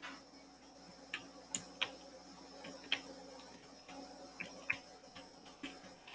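Faint computer mouse clicks, about seven of them spaced irregularly, over a low steady electrical hum.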